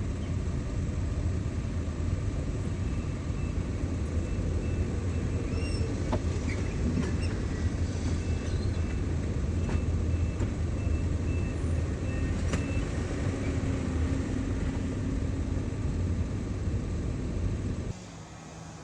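A large engine running steadily at a constant speed, with a few light clicks and knocks over it. It drops away sharply near the end.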